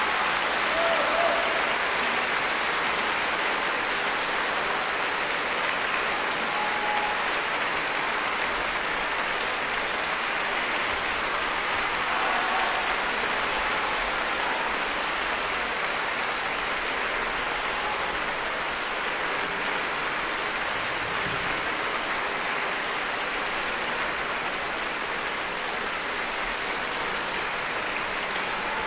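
Large concert-hall audience applauding steadily.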